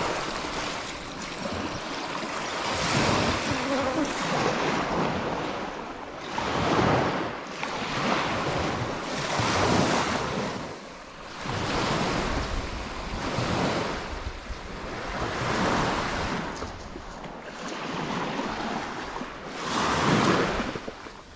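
Small Lake Malawi waves washing onto a sandy shore, swelling and falling about every two seconds, with some wind on the microphone.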